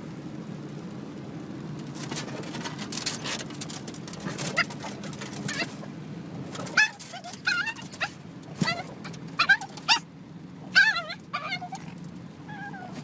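A dog whining and yipping in short, wavering, high-pitched calls, repeated many times from about a third of the way in, over a steady low hum.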